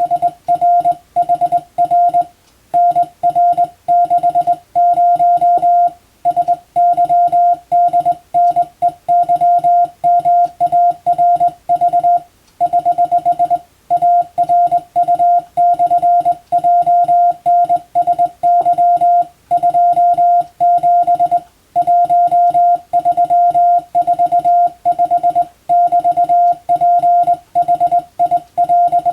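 Morse code (CW) practice tone: a single steady beep keyed on and off in rapid dots and dashes, with short pauses between groups.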